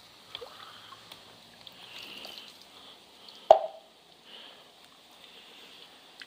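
Bath water from a bucket splashing and dripping as it is scooped by hand onto a small dog's wet coat and the wet concrete, in faint scattered drips. One short, sharp plop about three and a half seconds in is the loudest sound.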